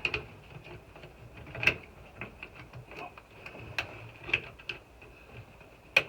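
Scattered light clicks and knocks of tools and metal parts as a VW Beetle's pedal assembly is worked into place, with a sharper knock about a second and a half in and another near the end. A faint steady high hum runs underneath.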